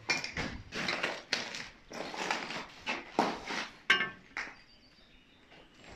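Irregular knocks and clinks, several a second, that thin out and stop about four seconds in.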